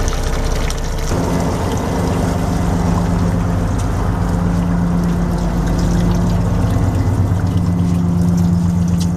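A boat engine running steadily, a low hum with a few steady tones that grow stronger about a second in. Seawater runs from a deck tap into a plastic tub at first.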